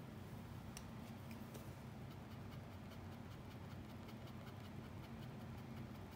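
Faint, irregular light ticks and scratches of a handheld drawing tool touching the paper of a small portrait, over a steady low hum.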